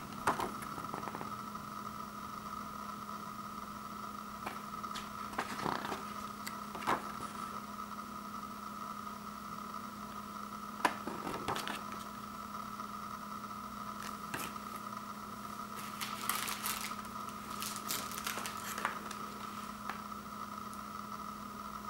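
Pages of a thin paper comic book being turned by hand: soft rustles and flicks every few seconds over a steady background hum.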